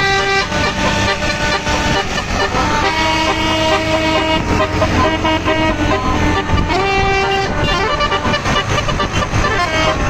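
A bus's basuri (telolet) musical air horn playing a tune of held notes at several pitches, one note held for about two and a half seconds a few seconds in. Steady traffic and crowd noise runs underneath.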